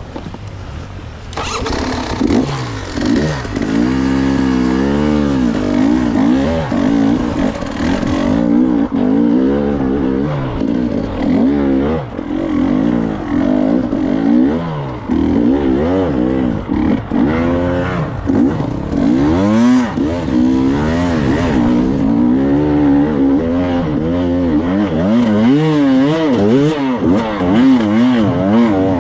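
Enduro motorcycle engine revving up and dropping back over and over, its pitch swinging up and down every second or so. It is quieter for the first second and then loud.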